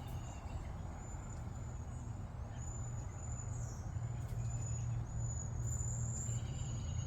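A steady low hum, with a run of short, high-pitched chirps repeating over it.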